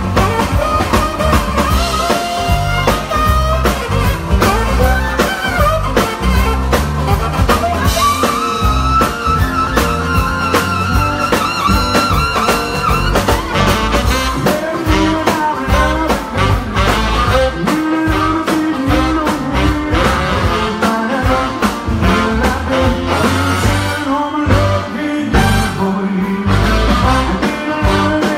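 Live band playing a rhythm-and-blues number with drums, bass and horns, with singing over it. A long note is held from about eight seconds in for some five seconds.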